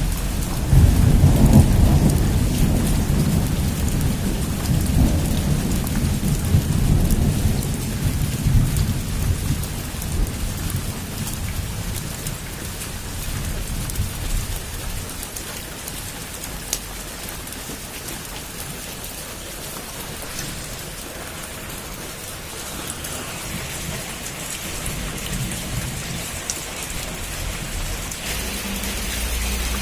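Heavy rain falling steadily on a rooftop, with a long rolling rumble of thunder that peaks about a second or two in and dies away over the next several seconds.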